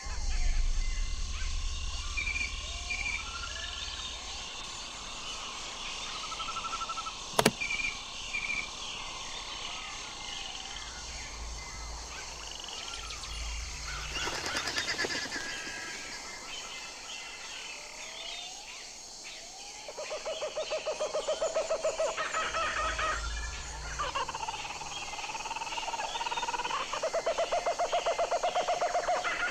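Small birds chirping throughout, with a single sharp click about seven seconds in. From about twenty seconds in, animal calls come in, each a rapid pulsing call repeated several times.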